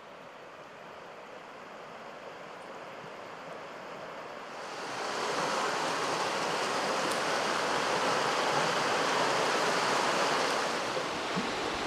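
Fast mountain river rushing over rocks: a steady rush of water that grows louder about four to five seconds in.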